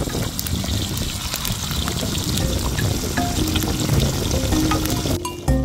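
Open wood fire crackling and hissing steadily, with many small sharp pops. Light music with struck, marimba-like notes comes in near the end.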